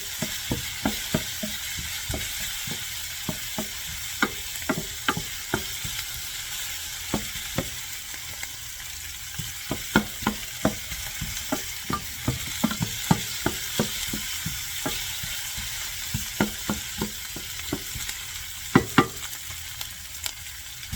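Onion, garlic and bell pepper sizzling in olive oil in a pan, with a steady hiss as the vegetables soften. A stirring utensil knocks and scrapes against the pan in irregular clicks, several a second at times.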